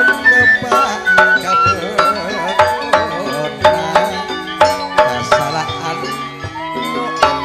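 Madurese gamelan music: held ringing metallophone notes with hand-drum (kendang) strokes at uneven intervals.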